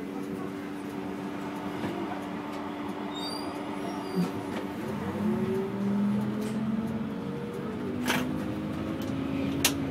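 City bus engine and drivetrain running under way, heard from inside the cabin as the bus pulls along. Its steady whine shifts and glides up in pitch about five seconds in, and two sharp clicks come near the end.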